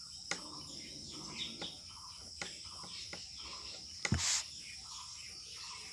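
Pen writing on paper: faint scratching strokes with a few light clicks and taps, the sharpest about four seconds in. Under it runs a steady high-pitched chirring of crickets.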